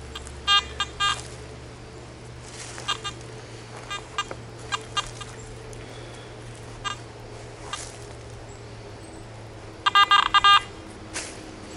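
Garrett AT Gold metal detector giving short bursts of rapid beeps as a handful of dug soil holding the target is passed over its search coil: one burst about half a second in, a few faint single beeps in the middle, and a louder burst near the end. A low steady hum runs underneath.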